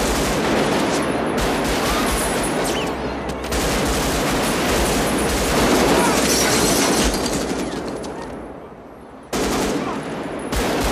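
Sustained automatic rifle fire from several guns, shot after shot with no break. The firing fades to a lull about eight seconds in, then starts again suddenly and loudly just after nine seconds.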